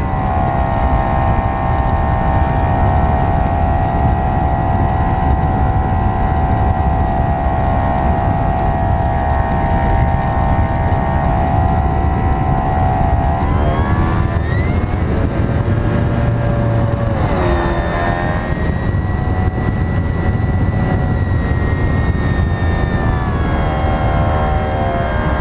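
A radio-controlled model plane's motor and propeller drone steadily over heavy wind rush, with a thin high whine on top. In the second half the pitch slides up and down a few times as the throttle changes.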